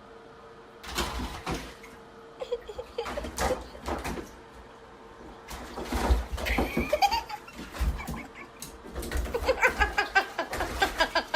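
Scattered knocks and bumps, then people laughing in short repeated bursts near the end.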